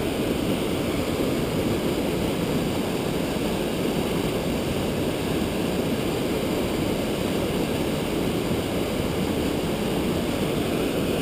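Whitewater mountain stream rushing over boulders, a steady unbroken wash of water.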